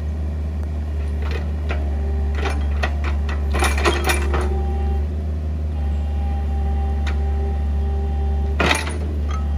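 Compact crawler excavator hauling itself up a steep dirt slope with its arm and bucket: a steady low engine drone, with a whine from the hydraulics coming in about two seconds in and holding until near the end. Several clanks and knocks of the bucket and tracks come around the middle, and a sharp loud knock near the end.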